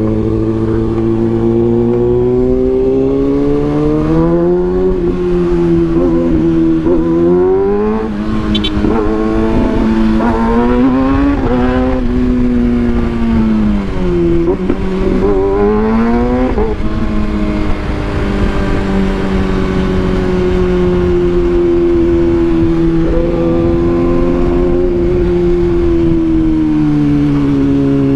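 Kawasaki ZX-6R 636's inline-four engine running loud through a decat link pipe and SC Project exhaust. It climbs in pitch and drops back sharply several times, like quick upshifts, then holds a steadier pitch near the end.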